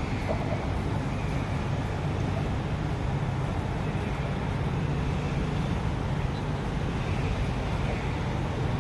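An engine running steadily at constant speed, a low even hum with no change in pitch.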